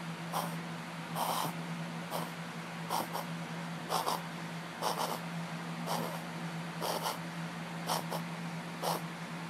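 Shih Tzu reverse sneezing: a run of short, noisy inward breaths through the nose, about one a second, ten or so in all.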